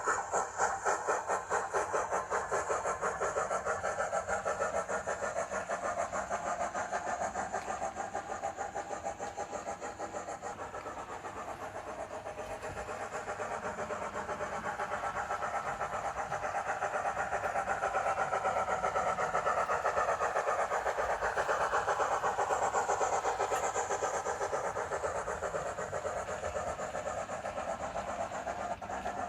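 Sound-fitted OO-gauge model steam locomotive (Bachmann H2 Atlantic) running, its sound decoder playing fast, even exhaust chuffs through its small speaker, with a wavering squeal from the decoder's wheel-flange sound rising and falling over the middle and later part.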